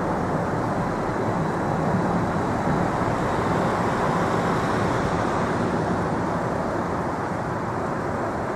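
Steady road noise of a car driving along a city street, mostly tyre and engine noise heard from within the moving car.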